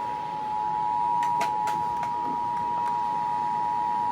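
Emergency Alert System attention signal: a steady two-tone alarm sounding without a break, with three faint clicks about a second and a half in.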